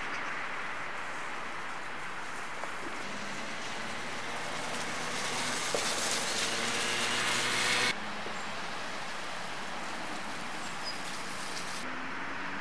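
Steady hissing outdoor noise that swells for a few seconds and cuts off abruptly about eight seconds in.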